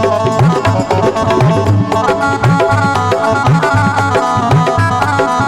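Instrumental interlude of a Rajasthani devotional bhajan: a hand drum plays a steady rhythm with bass strokes that bend upward in pitch, under a sustained melodic instrument line, with no singing.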